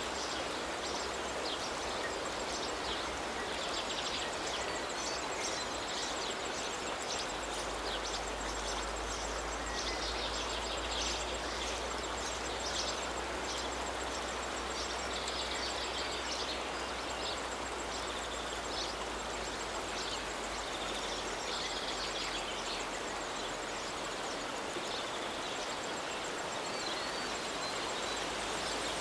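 River water flowing steadily, with small birds repeatedly giving short high chirps and trills over it.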